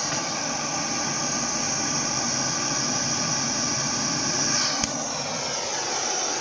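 A blower motor running with a steady, loud rush of air. It is switched off with a click about five seconds in, and its whine falls in pitch as it winds down.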